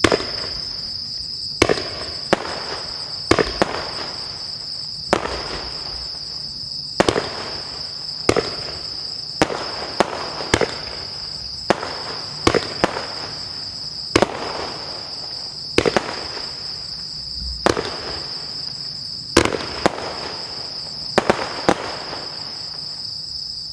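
16-shot firework cake firing crossette shots: a run of sharp bangs, one or two every second or so and often in quick pairs, as each shot launches and its stars split. A steady high chirring of crickets lies behind it.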